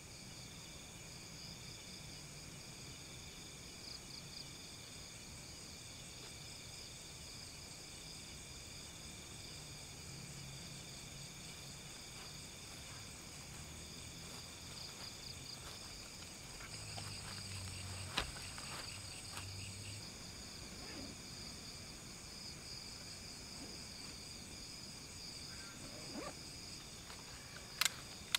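Night chorus of crickets and other insects, steady pulsing chirps at several pitches at once. Two sharp clicks stand out, one about two-thirds through and one near the end.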